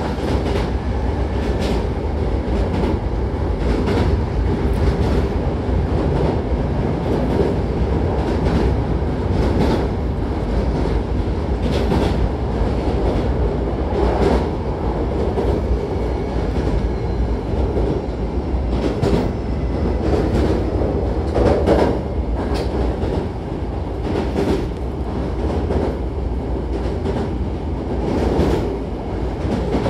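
Hankyu Kyoto Line train heard from inside the car while running: a steady low rumble of wheels on rail, with scattered clacks of the wheels over rail joints.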